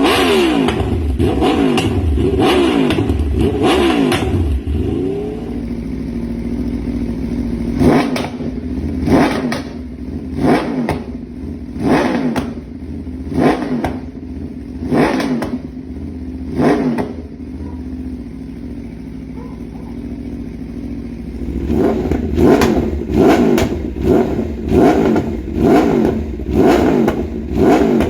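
Aprilia RSV4 RF's 65-degree V4 engine through an SC-Project aftermarket exhaust, revved hard with sharp throttle blips that rise and fall quickly, with steady idling between the runs of blips. Quick revs come one after another at the start, then single blips about every second and a half, then another fast run near the end.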